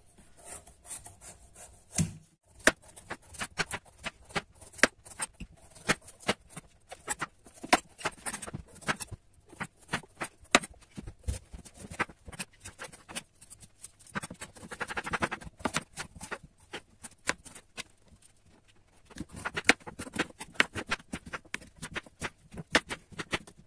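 Kitchen knife peeling and cutting a pumpkin on a plastic cutting board: irregular knocks of the blade on the board, with a couple of longer stretches of rasping as the blade saws through the rind and flesh.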